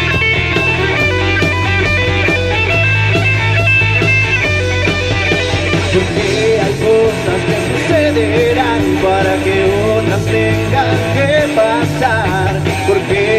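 Live rock band playing electric guitar, electric bass and drums, with held guitar notes at first and a singer's voice coming in about halfway through.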